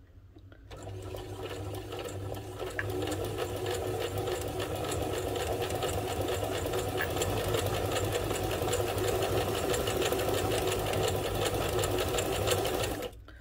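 Old mechanical Janome sewing machine stitching fabric at a fast, even rate. It starts about a second in, picks up speed over the first few seconds and stops sharply near the end. Its timing has just been reset, and it sews properly again.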